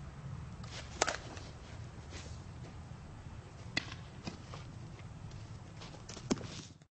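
Steady low rumble with a few sharp knocks, the loudest about a second in and the others near the middle and near the end; the sound cuts off just before the end.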